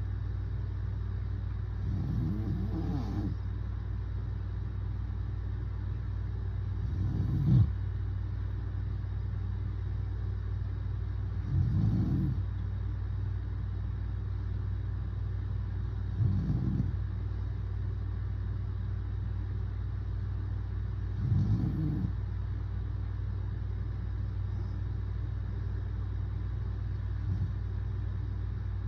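A man snoring in his sleep: six rasping snores at a slow, even rhythm, about one every five seconds, the last one fainter. A steady low hum runs underneath.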